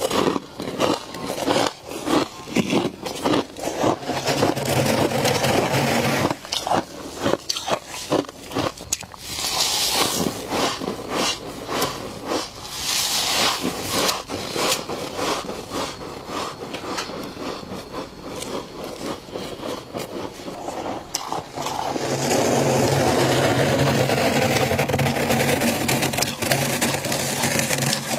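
Frost being scraped and crunched close to the microphone: a run of sharp, uneven scrapes and crackles, turning into a steadier, louder stretch of continuous scraping near the end.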